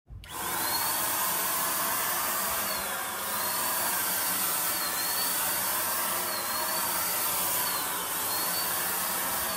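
Handheld electric Ozito paint spray gun running while spraying, a steady blowing whir from its motor. A high whine in it dips briefly in pitch about every one and a half seconds.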